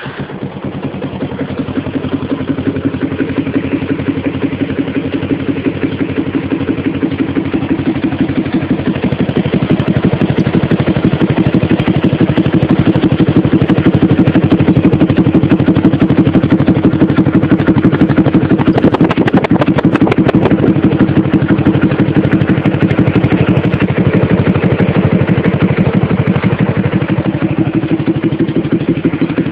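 Yamaha motorcycle's single-cylinder four-stroke engine running steadily through a 4N aftermarket exhaust with a Big Bullet Diamond muffler packed with fiberglass wool, giving a fast, even pulsing exhaust note. It starts right away and grows louder over the first dozen seconds, then holds steady.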